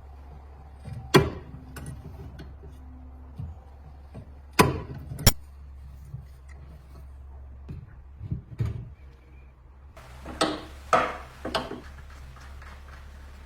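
Scattered sharp knocks and clicks, about eight of them in irregular clusters, over a steady low hum.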